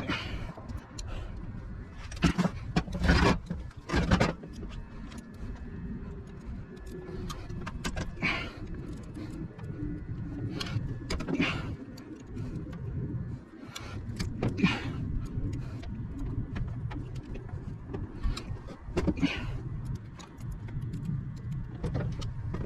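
Wrench and bolts clanking on a semi-hermetic refrigeration compressor's bolted end cover as the bolts are broken loose: scattered, irregular metal knocks over a low steady rumble.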